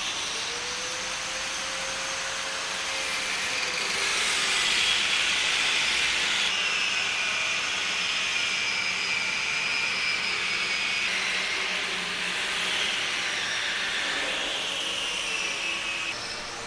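Handheld angle grinder cutting through the welds on the outside of a steel stator core to free its laminations: a steady high whine over the hiss of grinding. The pitch jumps a little at a few sudden breaks.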